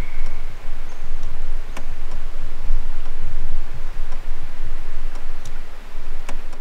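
Outdoor field ambience: an uneven low rumble with a faint hiss above it, broken by a few sharp ticks, about three in all.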